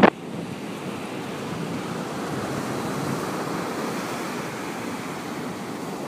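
Surf breaking and washing up a beach from a rough, choppy sea: a steady rush that swells a little around the middle, with some wind.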